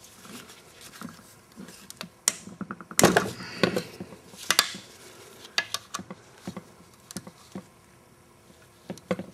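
Ratchet and socket loosening the connecting rod cap bolts inside a Briggs & Stratton Quantum lawnmower engine's open crankcase: irregular metallic clicks and clinks, loudest about three seconds in.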